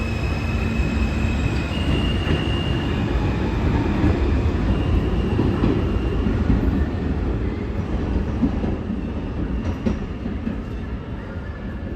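An R160 subway train running on the rails: a steady low rumble of wheels and cars, with thin high whine or squeal tones in the first few seconds, easing slightly near the end.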